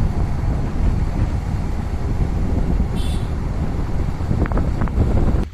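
Heavy wind buffeting on the microphone of a moving vehicle, a loud rumbling rush with road and engine noise under it, that cuts off suddenly at the very end.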